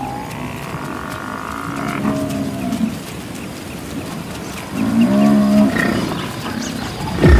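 African buffalo lowing: two long, low moo-like calls, one about two seconds in and a louder one about five seconds in. A lion roar starts abruptly right at the end and is the loudest sound.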